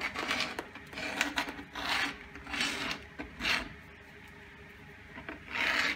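Screw point of a homemade beam compass scratching a circle into a fibreboard panel: a run of short rasping strokes, a pause of over a second, then one longer stroke near the end.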